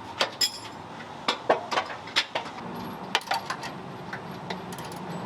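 Metal tools and suspension hardware clinking and tapping, about a dozen irregular sharp clicks.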